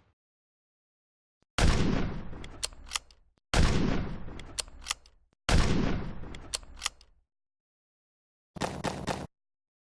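Big gunshot sound effects: three heavy shots about two seconds apart, each ringing out for about a second and a half with a couple of sharp clicks in the tail, then a shorter, quieter burst of rapid cracks near the end.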